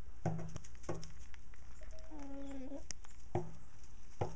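Chickens clucking in short single notes, with one longer drawn-out call of about a second near the middle.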